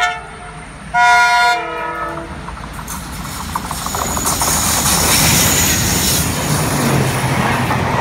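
Indian Railways diesel locomotive sounding its horn in one blast about a second in, then the train approaching and passing at speed, its engine rumble and wheel noise growing loud.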